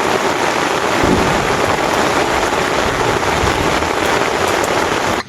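Loud, steady rushing noise of a storm, with an uneven low rumble beneath it. It cuts off suddenly at the end.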